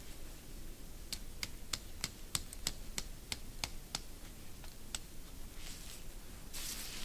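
A tent stake being tapped into the ground at a tarp corner: a run of about a dozen sharp taps, roughly three a second, then a couple more. A brief rustle near the end.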